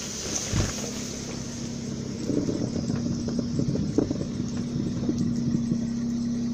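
Car engine running with a steady hum, with irregular crackling and knocks over it and a single thump about half a second in.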